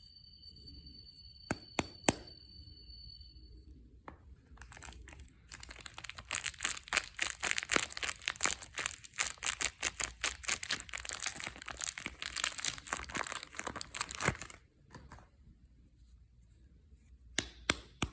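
Soap packaging being torn open and crinkled by hand: a dense, crackly tearing run of about nine seconds, with a few sharp taps before it and again near the end.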